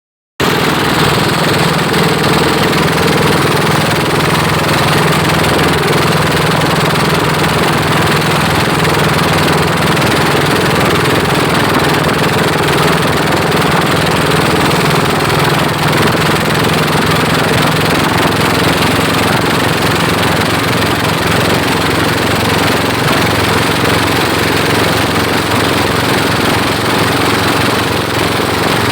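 Pompong motorboat engines running steadily under way in a race, a loud constant drone with no change in speed.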